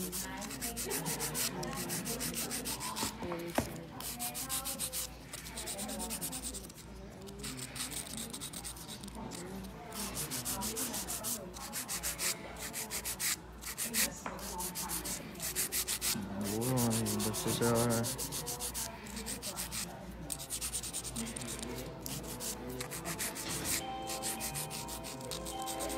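Hand nail file rasping back and forth on long stiletto acrylic nails in rapid, steady strokes, shaping them.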